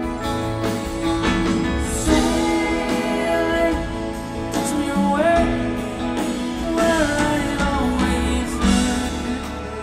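Live soft-rock ballad played by a band with a symphony orchestra: an instrumental passage with a lead melody that slides up and down between notes.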